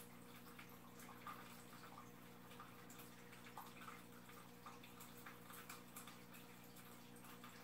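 Faint aquarium filter running: a steady low hum with scattered small drips and trickles of water at the surface.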